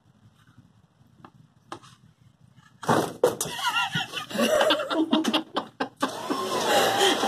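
Quiet at first, then from about three seconds in a run of knocks and clicks from handling a clipboard with a spring-loaded metal clip, over a wavering mechanical whine that settles to a steady tone near the end.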